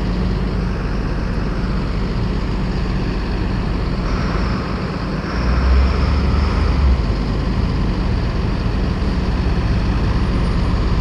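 Road traffic noise: a steady low rumble, with a vehicle going past about four to seven seconds in.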